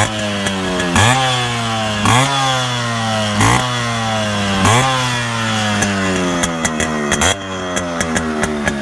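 Yamaha RX100's two-stroke single-cylinder engine idling with four quick throttle blips, its pitch jumping up on each and sinking slowly back. Near the end comes a rapid string of sharp crackles from the exhaust.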